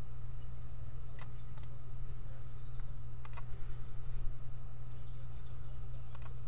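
Computer mouse clicking, a few sharp clicks spaced one to three seconds apart, with a brief faint scrape near the middle, over a steady low hum.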